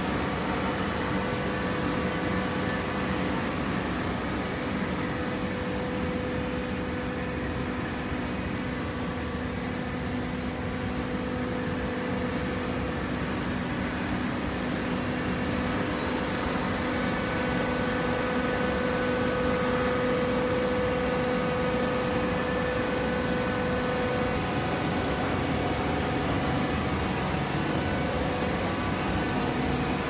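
Horizontal hydraulic baler for shredded paper running: a steady machine hum with a held whine that grows a little stronger about two thirds of the way through.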